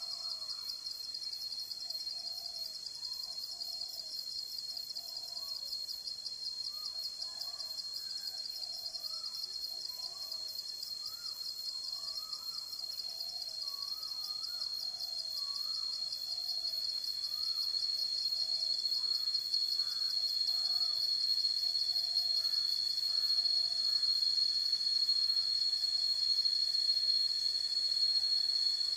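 Tropical forest ambience: a steady, high-pitched insect drone that grows louder over the last third, with soft hooting calls repeated about once a second through most of it.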